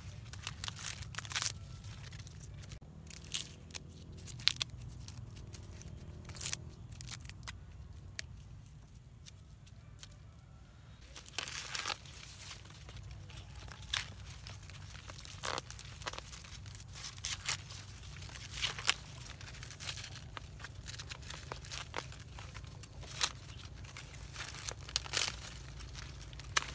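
Dry corn husks and leaves tearing and crackling in irregular snaps and rustles, over a steady low hum.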